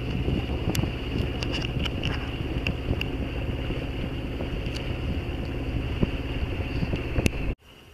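A sailboat's engine running steadily under motor in a flat calm, with wind on the microphone and a few light clicks. It cuts off suddenly near the end.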